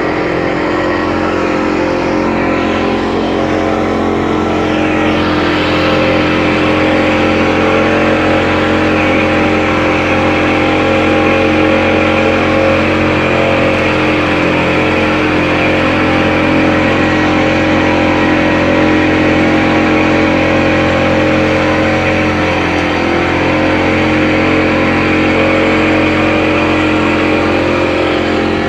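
Speedboat engine running steadily at cruising speed, heard from aboard the boat.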